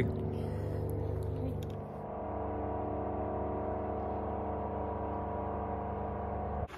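Background music of sustained chords, changing chord about two seconds in and cutting off just before the end.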